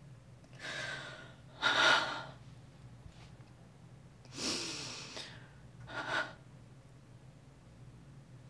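A person breathing heavily: four breaths in and out in two pairs, the second breath the loudest, over a steady low hum.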